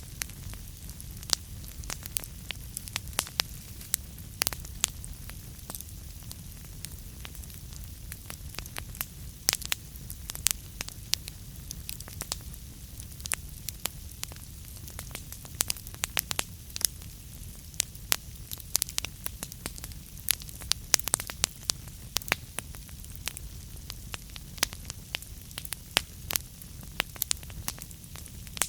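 Wood fire burning in a fireplace: a steady low rumble and hiss with frequent sharp, irregular crackles and pops.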